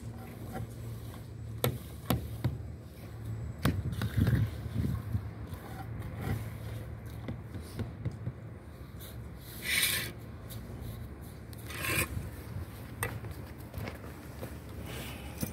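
Cement mortar being scraped and packed by hand against a stone kerb, with scattered light taps and knocks. Two longer scrapes come about ten and twelve seconds in.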